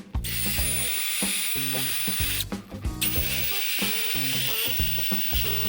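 Power tool with a wire-brush attachment cleaning rust and dust off a brake caliper carrier. It runs as a steady high hiss with a thin whine, in two runs broken by a short pause about two and a half seconds in.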